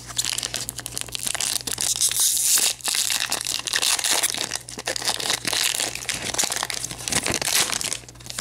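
Foil wrapper of a Pokémon card booster pack crinkling and crackling as it is torn open and pulled apart by hand.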